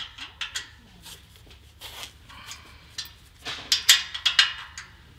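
Open-end wrench clicking and clinking against a wedge anchor's steel nut as the nut is tightened down: a few sharp metallic clicks near the start, then a quicker cluster of them about three and a half to four and a half seconds in. Tightening the nut draws the anchor's wedge up so it grips the concrete.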